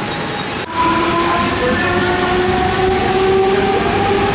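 Suburban electric train running with a whine of several tones that slowly rises in pitch, heard over rumbling train noise. It starts after an abrupt cut about a second in.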